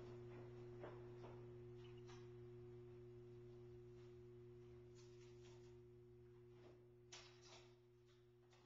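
Near silence: room tone with a faint steady hum and a few very faint ticks.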